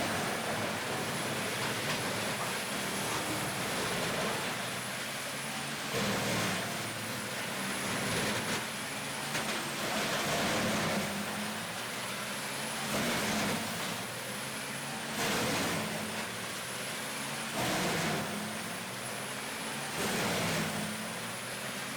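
Rotochopper B66T wood grinder running and grinding wood: a dense, steady machinery noise with a faint high whine. The sound changes abruptly every few seconds.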